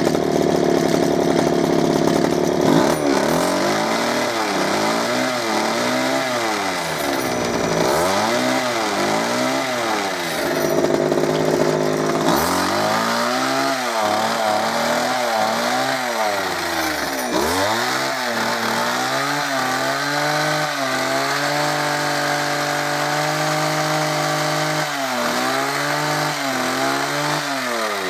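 The small two-stroke engine of a 1996 Sabre HTS-43 hedge trimmer, its carburettor freshly rebuilt, is revved up and down in repeated throttle blips of about a second each, with a few short steady stretches between them. It picks up each time without bogging down, which shows the rebuild has cured its earlier bogging.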